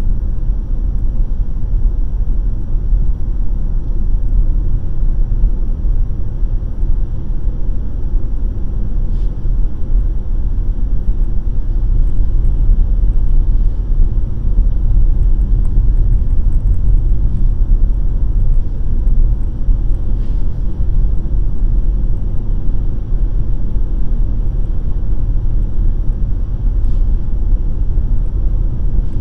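Steady low rumble of road and engine noise from a car cruising at highway speed, heard from inside the cabin, with a faint steady high-pitched whine.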